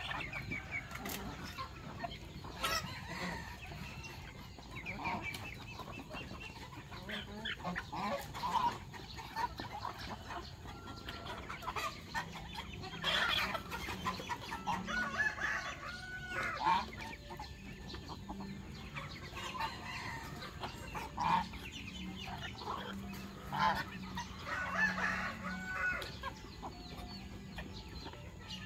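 A flock of chickens clucking and calling while they peck at scattered grain, with a rooster crowing a couple of times.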